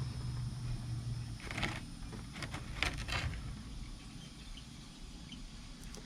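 Handling noises from potting cuttings: a few short scrapes and clicks between about one and a half and three and a half seconds in, after a low hum that stops about a second and a half in.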